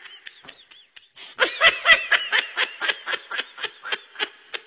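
A child laughing hard in a rapid run of short ha-ha pulses, faint at first and loud from about a second in.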